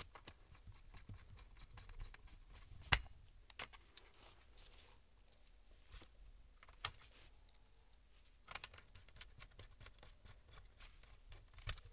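Quiet scattered clicks and taps of a small screwdriver and fingers working on a laptop's motherboard and plastic chassis, with two sharper clicks about three and seven seconds in.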